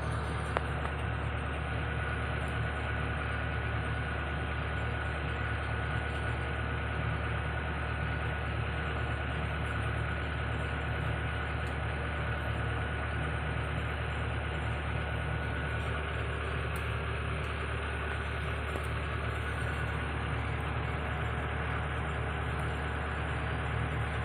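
Excavator's diesel engine running steadily at one speed, a constant low hum with a faint high whine over it.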